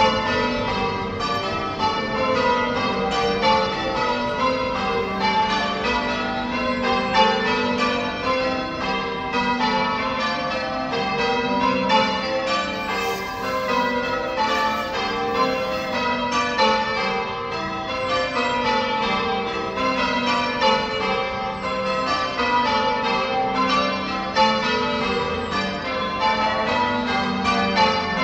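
A ring of church tower bells rung in changes, each bell struck in turn in a steady, rapid sequence that runs on without a break.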